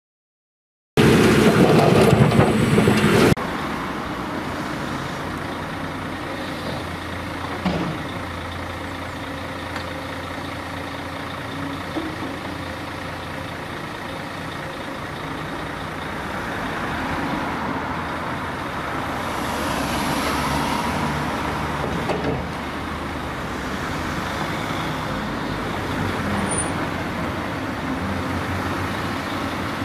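Diesel engines of a Cat 323D tracked excavator and a tipper truck running steadily while the excavator digs and loads, with a few brief knocks. A loud, noisy burst comes about a second in and cuts off a couple of seconds later.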